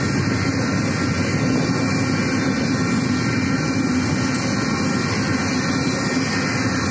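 Double-stack intermodal freight train rolling steadily past at close range: a loud, even rumble of wheels on rail with a steady hiss over it.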